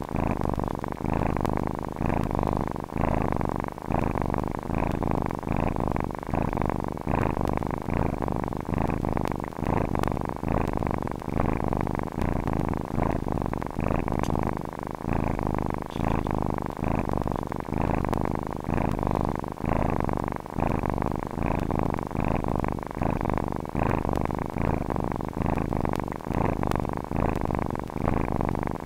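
Domestic cat purring steadily and close up, a low rumbling purr that swells and eases in an even rhythm with each breath in and out.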